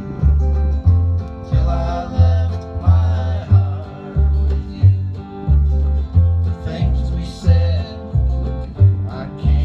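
A bluegrass band playing live: an upright bass plucks steady low notes about twice a second under strummed acoustic guitars.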